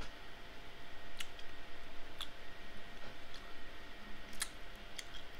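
Eating sounds: about five short, sharp clicks and smacks, spread a second or so apart, from a metal spoon in a bowl of ice cream and from chewing, over a faint steady hum.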